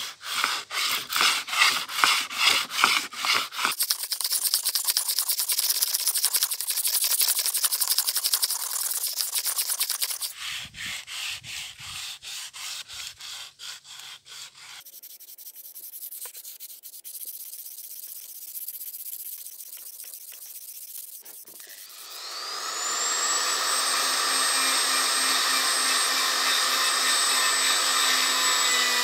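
Sandpaper on a wooden block rubbed in quick back-and-forth strokes along a hardened-steel scale beam, making a rasping hiss. About two-thirds of the way in, a small handheld rotary tool spins up with a rising whine and runs steadily, polishing the bore of a steel clip.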